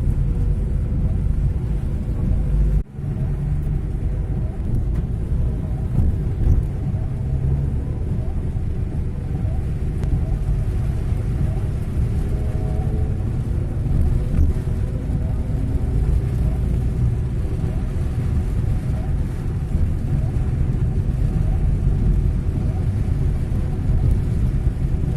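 Angkot minibus engine running through a loud aftermarket 'ngorok' (snoring) exhaust, a steady deep rumble, with a brief break about three seconds in.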